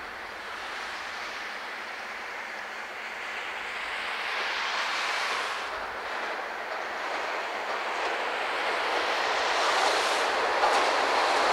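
JR West 381-series electric express train approaching on the rails, its rolling noise growing steadily louder, with the first sharp clacks of wheels over the rail joints near the end.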